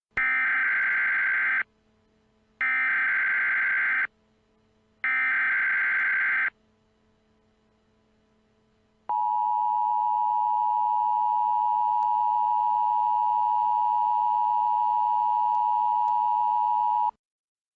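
Emergency Alert System tones: three short bursts of SAME digital header data, each about a second and a half with a pause between, announcing a tornado warning. Then the EAS two-tone attention signal, held steady for about eight seconds before it cuts off.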